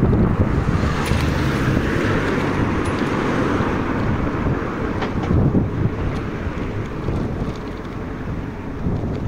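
Wind rushing over the microphone of a moving bicycle, a steady low rumble, with street traffic noise mixed in.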